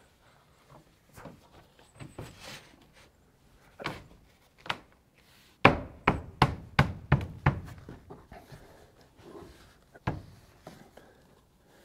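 Hammer knocking on composite PVC tongue-and-groove porch boards to work a board into place: a few single knocks, then a quick run of about six hard strikes in under two seconds, and one more knock a couple of seconds later.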